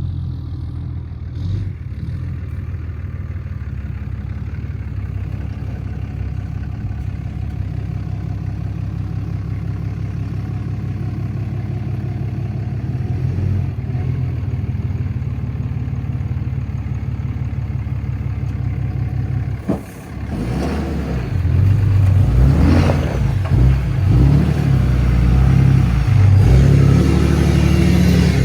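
Ram's 6.7L Cummins inline-six turbodiesel running with a steady, finely pulsing diesel note. About two-thirds of the way through the sound breaks off briefly, and from there the truck noise is louder and more uneven.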